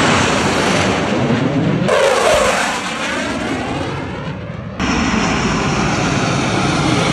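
Blue Angels F/A-18 Super Hornet jets passing low overhead, a loud jet roar whose pitch falls as they go by. The sound changes abruptly twice, about two seconds in and near the middle.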